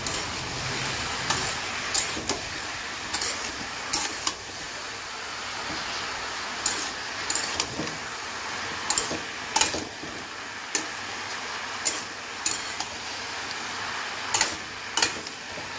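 Metal spatula stirring chunks of bottle gourd in a steel kadhai, with irregular scrapes and clinks against the pan over a steady hiss of frying.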